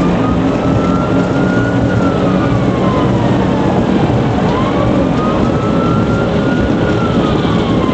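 Police siren on a wail setting, its pitch rising and falling slowly about twice, over steady engine and road noise from the patrol car driving at speed.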